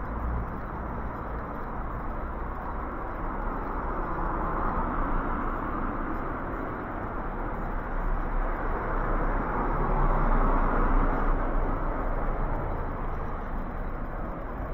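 Road traffic: cars driving past on the street, their tyre and engine noise swelling and fading twice, loudest about ten seconds in.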